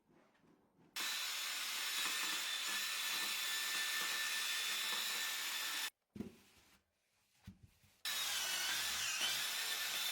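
A machine running loudly in two long stretches, starting and stopping abruptly, with a thump and a few knocks in the gap between them about six seconds in.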